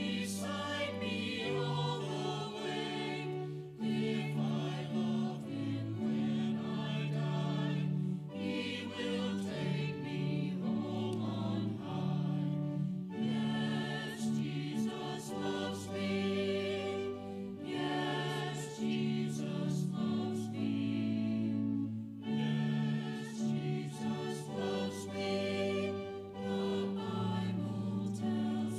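A choir singing church music with sustained accompaniment, in held phrases that break every few seconds.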